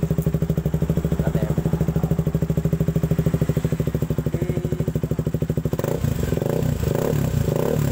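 KTM RC 200's single-cylinder four-stroke engine idling through an F2racing aftermarket racing exhaust, then, about six seconds in, a run of quick throttle blips.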